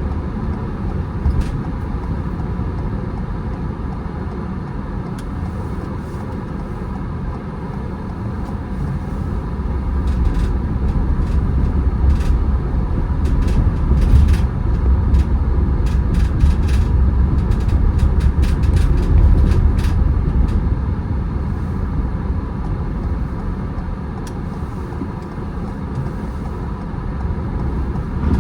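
A car driving: a steady low road rumble that grows louder for several seconds in the middle, then eases, with scattered short clicks.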